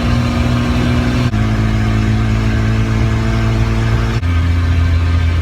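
1978 Toyota Land Cruiser FJ40 driving on the road: a steady engine drone with road noise, its pitch stepping to a different level abruptly about a second in and again near the end.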